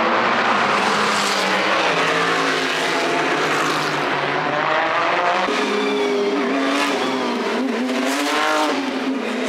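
Race car engines at speed: a dense roar, then from about halfway a single engine note that rises and falls in pitch.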